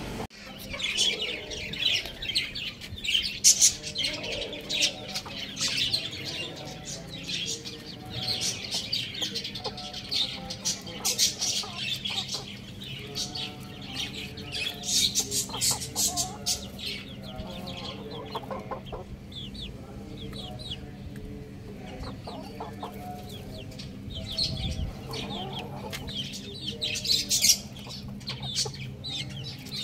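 Chickens calling: domestic roosters clucking low while young chicks in a wire coop peep in quick, high chirps.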